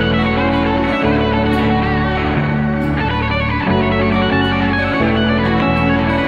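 Background instrumental music led by guitar, with sustained chords that change every second or two.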